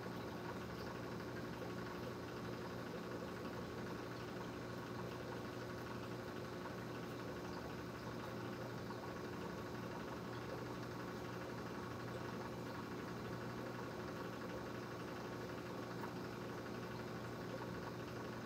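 Aquarium filter and pump equipment running: a steady electric hum with an even hiss of circulating water.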